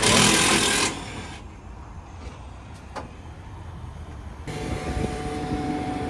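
A short, loud burst of rushing hiss, then after a cut a JCB Fastrac tractor's engine running steadily with a fixed whine, growing louder toward the end.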